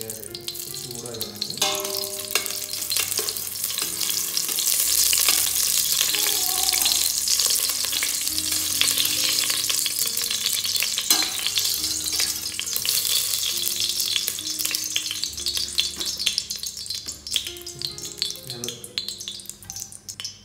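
Ghee sizzling and crackling as it melts in a hot stainless-steel pot, with a metal spoon clicking and scraping against the pot. The sizzle builds a couple of seconds in and dies down toward the end as the fat turns fully liquid.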